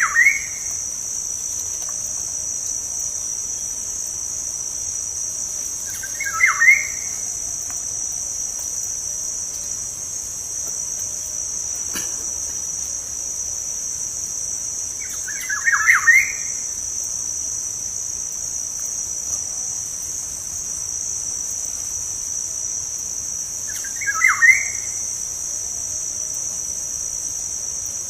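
Black-naped oriole (kepodang) song: a short burst of fluty whistled notes four times, about every six to ten seconds, over a steady high-pitched insect buzz.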